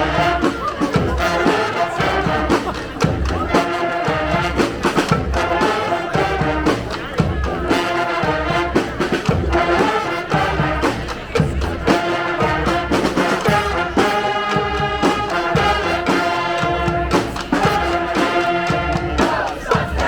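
Brass street band playing: sustained horn lines over a steady drum beat.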